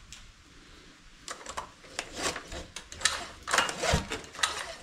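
Irregular mechanical clicking and clattering at an outboard motor's open powerhead, starting about a second in and getting louder, with several sharp knocks in the second half.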